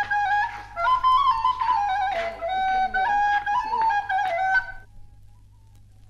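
A wind instrument plays a quick, ornamented melody in Moroccan Rif Berber folk music and breaks off near the end. A low hum and faint crackle of the old recording remain.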